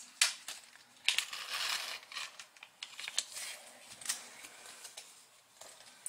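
A small clear plastic parts bag being torn open and crinkled, with scattered sharp clicks of small metal screws and brass spacers tipped out onto the table.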